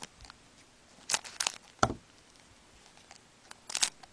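Foil trading-card pack crinkling and tearing in short bursts as it is handled and opened, with a single knock about two seconds in.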